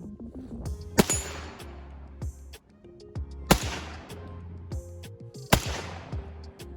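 AR-15 rifle in 300 Blackout fired three single shots, about two to two and a half seconds apart, each ringing out after the crack. Background music plays underneath.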